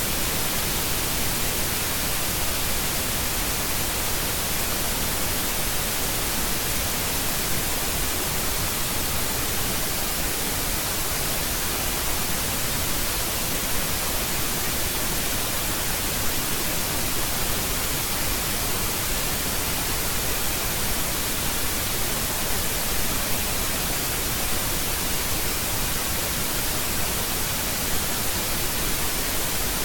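Steady, even hiss of static, unchanging throughout, with no other sound over it.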